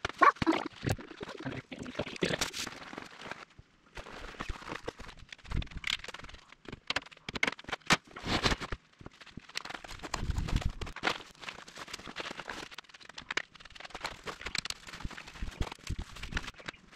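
Irregular clanks, knocks and rattles of metal support bars and the pull-out bunk end being set up on a Rockwood pop-up camper, with canvas rustling. A low rumble comes about ten seconds in.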